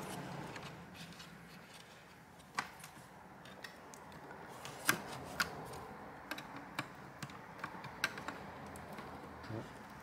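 Scattered small clicks and taps of fingers and a small tool working a cable into place inside an opened laptop's plastic chassis. A few sharper clicks stand out, the loudest about halfway through.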